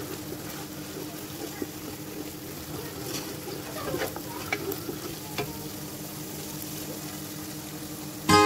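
Tomato and onion sauce sizzling as it fries in a pot, with a few sharp clicks of a spoon against the pot between about three and five and a half seconds in. A steady low hum runs underneath.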